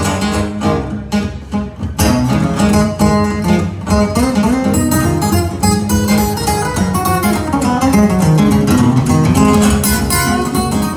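Acoustic guitars playing an instrumental break in a country song: strummed chords with a picked lead line over them.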